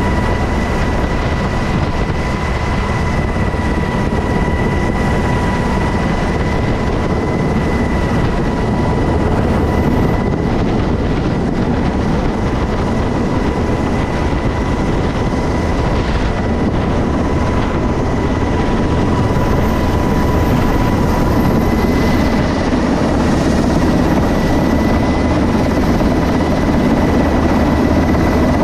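MH-60 Seahawk helicopter running on deck: steady loud rotor and turbine noise with a constant high whine.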